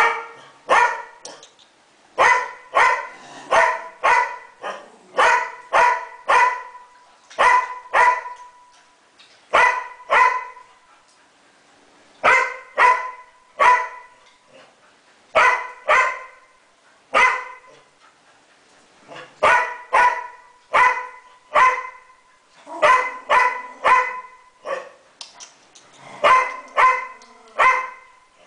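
A dog barking over and over in short, sharp barks, often two or three close together, with brief pauses between the runs.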